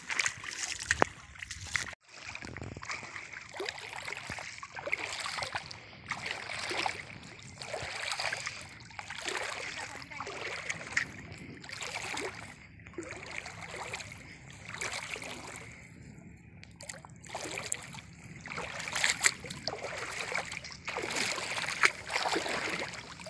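Shallow, stony river water splashing and sloshing close by, in uneven irregular surges.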